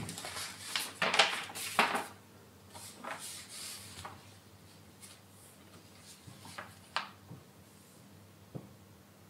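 Paper rustling and crinkling as an envelope is opened and a folded letter is unfolded by hand. The rustling is loudest in the first two seconds, then comes in a few softer handling sounds, with one sharper crinkle about seven seconds in.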